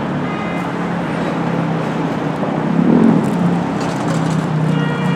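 Steady road-vehicle noise with a low, even hum.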